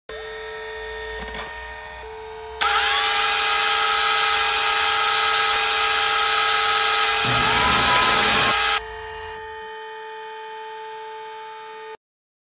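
Synthetic sound-design soundtrack: a steady electronic hum with several overtones, joined about two and a half seconds in by a much louder hiss carrying steady high tones, which cuts off suddenly after about six seconds. The hum runs on alone and stops abruptly near the end.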